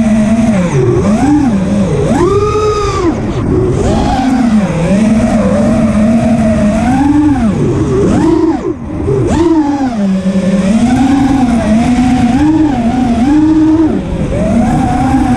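FPV racing quadcopter's motors whining, the pitch rising and falling over and over with the throttle. There is a sharp punch up and back down about two and a half seconds in, and a brief drop in level just past the middle.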